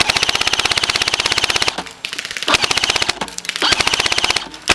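Airsoft electric rifle firing full-auto in three bursts, a long one and then two shorter ones: a fast, even clatter of shots over a high motor whine.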